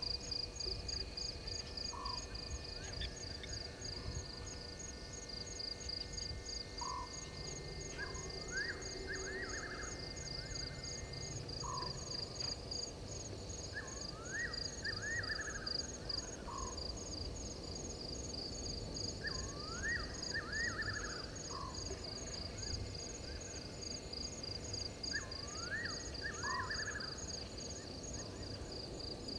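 Night chorus at a waterhole: insects trilling in a fast, steady pulse, with frogs calling in groups of short rising notes about every five or six seconds.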